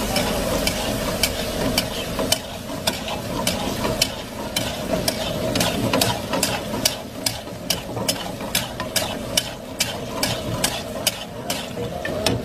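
A spatula stirring mutton karahi in a metal karahi, knocking and scraping against the pan in repeated sharp clicks, a few a second, over a low sizzle. The meat and masala are being bhuna (stir-fried) on a low flame, with cream just added.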